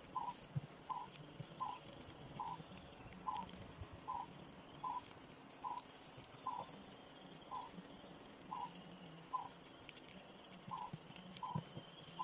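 A small animal calling, repeating one short note at the same pitch a little more than once a second, with faint crinkles of paper being folded underneath.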